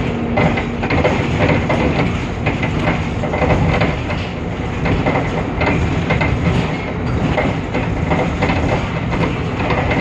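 Temsa Avenue LF city bus on the move: its DAF PR 228 diesel and ZF Ecolife automatic drivetrain running under heavy road noise, with a constant clatter of rattles and knocks.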